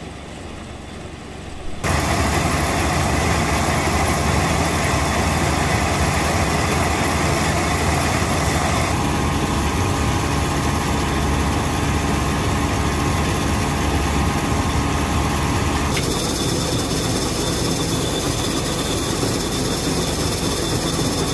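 Minneapolis Moline 1200 corn sheller running with the John Deere tractor beside it, a steady loud mechanical din of engine and machinery. It is quieter for the first two seconds, then runs loud and even, shifting in tone about nine and sixteen seconds in.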